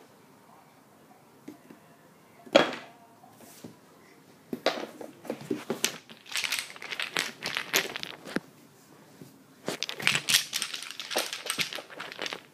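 Toy blocks clattering and knocking together in a box as a baby rummages through them. There is a single sharp knock about two and a half seconds in, then two long runs of rapid rattling clatter, the second near the end.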